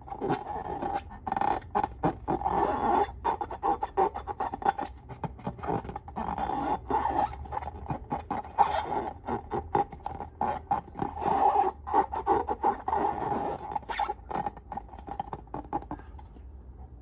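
Slime being worked with a tool or by hand: continuous scraping and crackling made of many small clicks, which stops shortly before the end.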